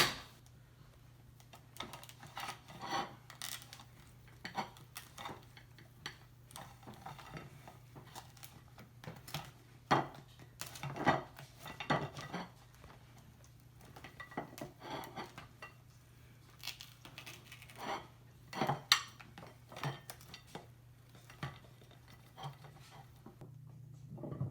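A spoon clinking, tapping and scraping against a plate and crab legs in short, irregular bursts, over a faint steady low hum.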